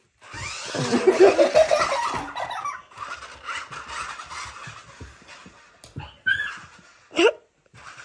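Laughter, loudest for the first two seconds or so, followed by a softer rattling noise with many small clicks and two short high squeals near the end.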